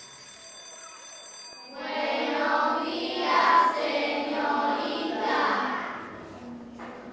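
A steady high ringing tone that stops under two seconds in, then a group of children's voices singing together in unison for about four seconds before fading.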